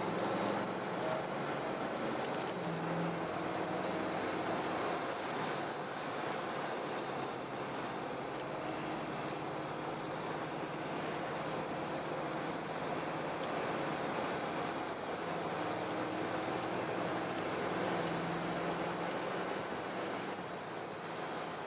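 A 1970 Pontiac GTO cruising, heard from inside the cabin: a steady mix of engine and road noise with a faint high whine over it.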